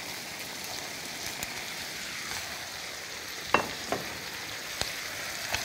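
Dried whitebait sheets and garlic scapes sizzling in a frying pan with soy-sugar sauce while being stirred and tossed with silicone spatulas, with a few sharp clicks of the spatulas against the pan from about three and a half seconds in.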